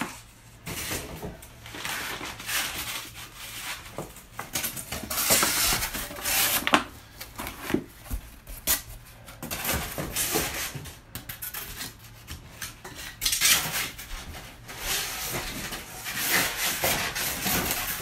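Flat-pack desk parts being unpacked and handled: irregular clattering and knocking of boards and fittings, with short rustles of cardboard and plastic packing.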